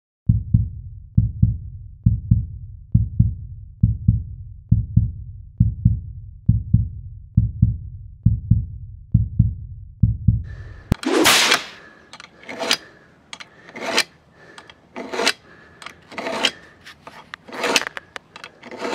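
A low, bass-heavy music beat pulsing a little over once a second. About eleven seconds in it gives way to a steel lawnmower blade rasping through the crossed honing rods of a handheld Block sharpener: about seven sharpening strokes, roughly one every second and a bit.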